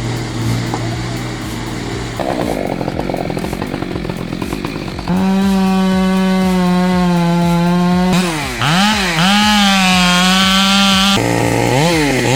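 Two-stroke chainsaw running at high revs with a steady note, its pitch dipping sharply and climbing back twice as it loads in the cut, after a few seconds of a lower, rougher engine drone.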